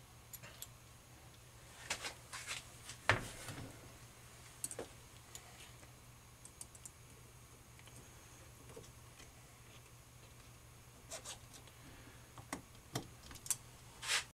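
Scattered light metallic clicks and clinks of steel transmission gears, washers and snap-ring pliers being handled, in small clusters a couple of seconds in and again over the last three seconds, over a faint steady low hum.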